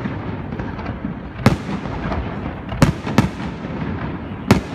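Aerial fireworks shells bursting: four sharp booms, the middle two close together, over a low continuous rumble from the display.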